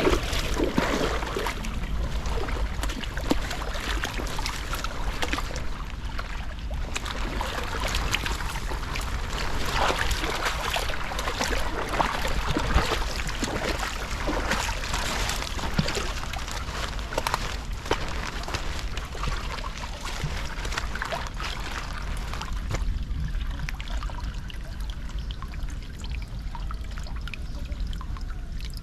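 Floodwater pouring and trickling steadily into a culvert drain, with many small splashes and drips.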